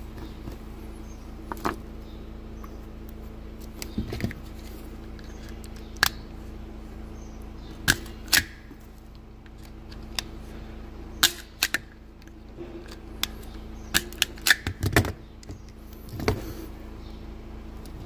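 Handling sounds from wiring work: a dozen or so sharp clicks and snaps of hands working wires, rubber weather seals and a self-adjusting wire stripper, bunched together a little before the end, over a steady low hum.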